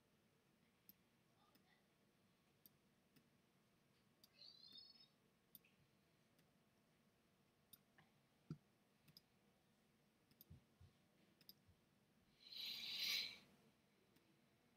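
Faint, scattered clicks from a computer pointer while strokes are drawn on screen. There is a brief squeak about four seconds in, and a short, louder hiss about thirteen seconds in.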